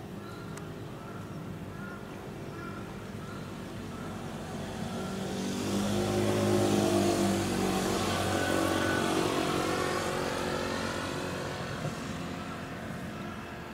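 A motor engine passing by: it grows louder over several seconds, is loudest around the middle, then fades away.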